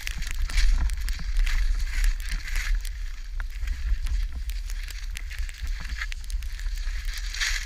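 Skis scraping and swishing over snow in repeated turns, with scattered clicks and knocks, over a steady low rumble of wind on the GoPro's microphone.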